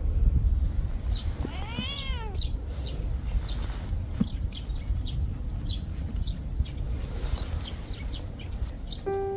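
A domestic cat meows once about two seconds in, a single call that rises and falls in pitch. Short high chirps sound on and off throughout, and music begins near the end.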